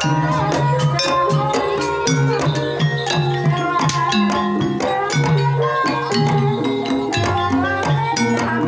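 Javanese gamelan in Banyumasan tayub style: kendang barrel drums beat a busy pattern over ringing bronze metallophones and hanging gongs.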